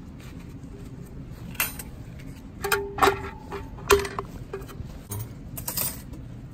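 Stainless-steel rigid sterilization container and its metal filter retainer plate clinking and knocking as the filter is set and the plate pressed into place: a handful of sharp metallic knocks, the loudest about three and four seconds in, some with a brief ringing tone.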